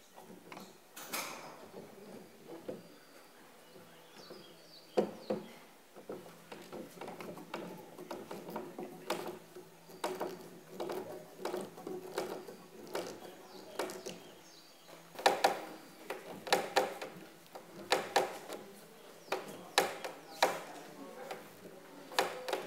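Steel bar clamps and F-clamps being fitted and tightened across a glued-up wooden panel: scattered sharp metallic clicks and clacks as the jaws slide along the bars and knock against the wood. The clicks come thickest in the last third.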